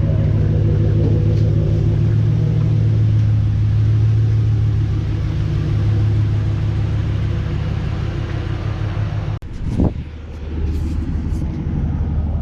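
The Hemi V8 of a 2014 RAM 1500 running steadily. About nine seconds in the sound drops out for an instant, there is a short rising sweep, and then the engine sound carries on lower.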